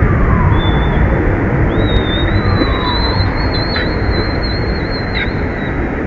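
A thin, high, wavering squeal from a baby macaque being dragged on the ground, running from about half a second in until near the end, over a loud steady rumble of wind on the microphone.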